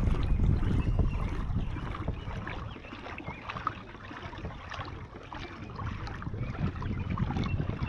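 Water sloshing and trickling around a kayak hull, with many small irregular drips and ticks and a low wind rumble on the microphone. It swells louder at the start and again near the end.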